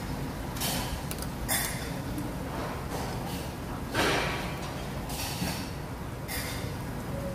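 Metal tongs scraping against a domed metal bulgogi pan as the beef and broth are stirred: about five short scrapes, the loudest about four seconds in, over a steady low background rumble.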